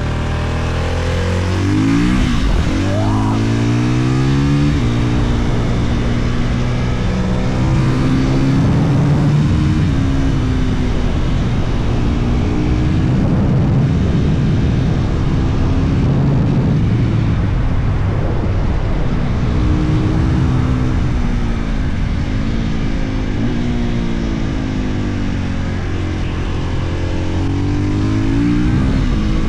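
2022 Husqvarna FE 450's single-cylinder four-stroke engine being ridden hard. It revs up through several quick gear changes in the first few seconds, runs on at high revs with rushing air noise, then dips and revs back up a few times toward the end.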